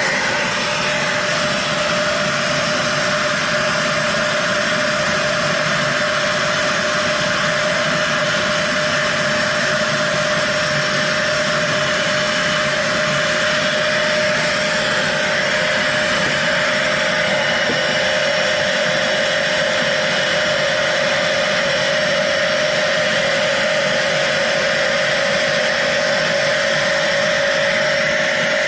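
Dyson DC40 upright vacuum cleaner running steadily at full power: an even high motor whine over a loud rush of air.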